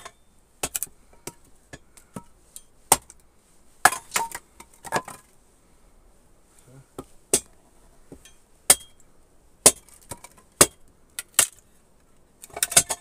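Axe splitting firewood into kindling on a wooden chopping block: a series of sharp, irregular chops, about one a second, some in quick pairs.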